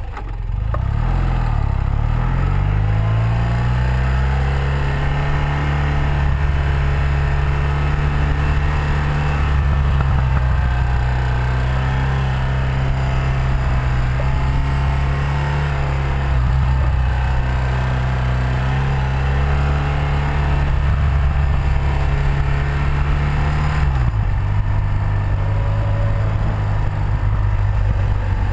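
1984 BMW R100RS air-cooled flat-twin (boxer) motorcycle engine running under way, with wind and road noise. Its revs climb over the first couple of seconds, hold fairly steady with small rises and falls, and drop about 24 seconds in.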